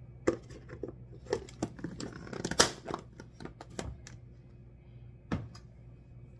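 A wooden spoon knocking and scraping against a plastic food container and a plastic lid being pressed on. It is an uneven run of short knocks and clicks, the loudest about two and a half seconds in and another sharp one about five seconds in.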